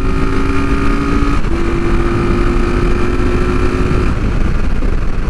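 1973 Honda CB450's parallel-twin engine running at a steady pitch near its top speed, under heavy wind rush. The note breaks briefly about a second and a half in, then drops away near the end, leaving mostly wind.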